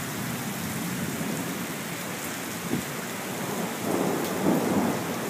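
Heavy thunderstorm rain pouring steadily, with a louder swell about four seconds in.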